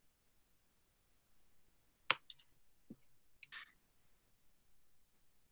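A few short sharp clicks, four of them between about two and three and a half seconds in, the first the loudest, over otherwise near silence.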